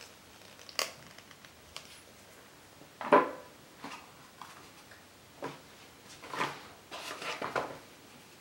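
Tabletop handling noises: a food colouring tube and a small packet picked up and set down beside a glass bowl. There is a sharp knock about three seconds in and a cluster of rustles and taps near the end.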